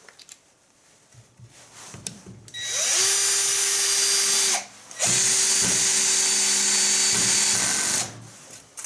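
An AEG BS14 G3 Li cordless 14-volt drill-driver drives a 3.5×50 mm screw into a wooden beam with its torque clutch on the third setting. The motor spins up about two and a half seconds in and runs at a steady pitch. It stops briefly near the middle, then runs again for about three seconds.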